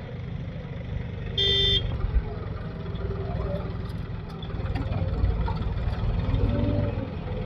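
Heavy diesel engine running steadily, with one short horn toot about one and a half seconds in.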